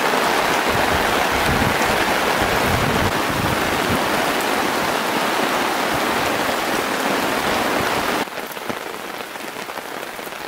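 Heavy rain falling steadily in an even hiss. About eight seconds in it drops suddenly to a quieter, lighter rain.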